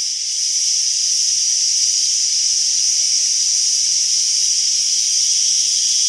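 Dense insect chorus of a tropical rainforest: a steady, high-pitched shrill buzz with a second, lower band beneath it.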